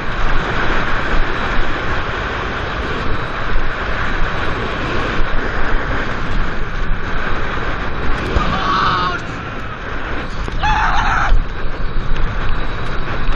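El Toro wooden roller coaster train rumbling and rattling along its wooden track at speed, with wind rushing over the microphone. Riders scream twice, a little past halfway and again about two seconds later.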